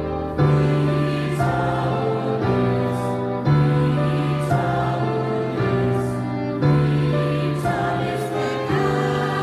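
Slow choral music: a choir singing sustained chords that change about once a second.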